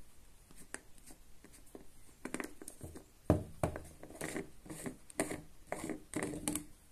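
Handling noise from a cast epoxy resin jar and its lid: a few light clicks, then from about two seconds in a quick run of knocks, taps and scrapes as the jar is set down and its lid gripped and turned. The loudest knock comes about three seconds in.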